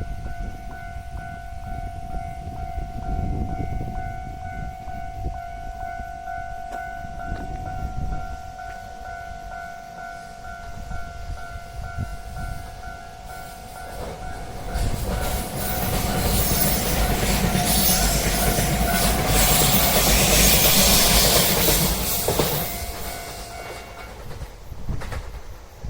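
Japanese level-crossing alarm ringing steadily as a train approaches and runs over the crossing. The train's wheel and running noise builds about halfway through, is loudest in the later part, and then fades. The alarm cuts off near the end.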